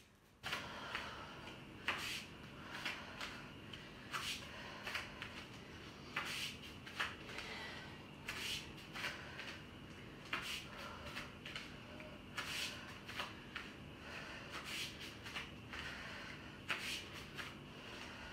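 Feet stepping and scuffing on a tiled floor during alternating kettlebell lunges, a pair of short sounds about every two seconds, over a faint steady hum.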